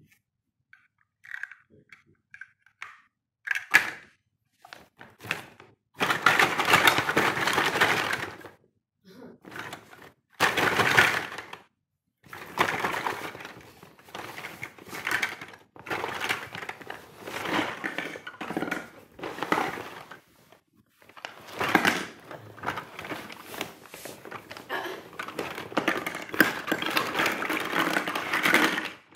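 Large plastic toy building blocks clattering against each other and a stiff plastic bag crinkling as a toddler rummages in it and tips it over. A few short clicks come first, then long rattling, rustling stretches of several seconds each.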